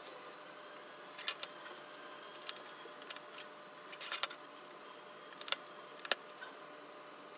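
Plastic LEGO pieces being handled and pressed together on a tabletop: a scatter of faint, sharp clicks and taps.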